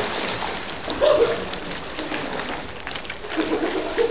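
Pool water splashing and lapping as several swimmers move about, a dense crackle of small splashes that is loudest about a second in, with faint voices in the background.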